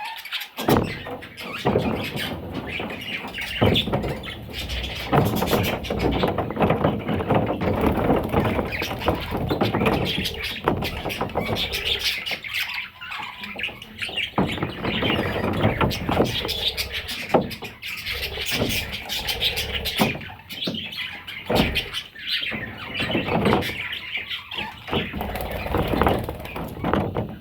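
Pet parrots chattering continuously with chirps and squawks, mixed with many short clicks.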